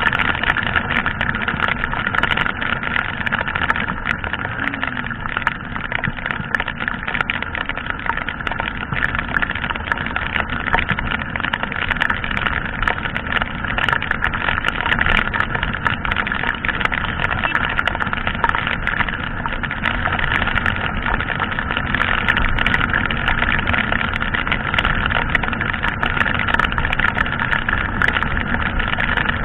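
Yamaha sport motorcycle ridden at about 60 km/h in heavy rain: a steady rush of wind and wet road noise over the running engine, with frequent small ticks of raindrops hitting the camera.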